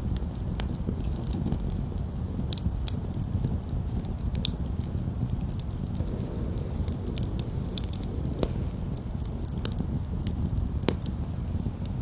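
Wood campfire burning, crackling and popping with frequent sharp snaps over a steady low rush; a handful of louder pops stand out.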